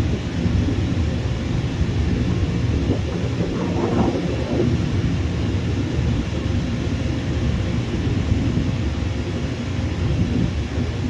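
Low, steady rumble of jet airliner engines, with a brief brighter swell about four seconds in.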